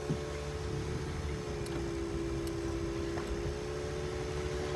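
Steady hum of a car idling, heard from inside the cabin, with a few low, even tones over a low rumble.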